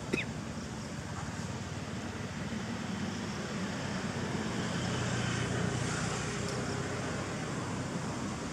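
Road traffic noise: a motor vehicle passing, growing louder through the middle and fading again.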